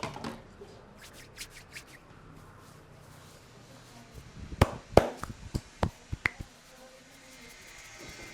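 Barber's head massage: hands rubbing through the hair with light clicks, then, a little after halfway, a quick run of about seven sharp slaps and cracks, the first two loudest.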